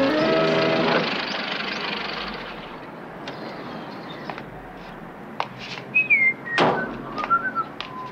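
Music ends about a second in; then light clicks and knocks as a man climbs out of an old saloon car, its door shut with a single thunk about two-thirds through, and short whistled notes, one of them falling.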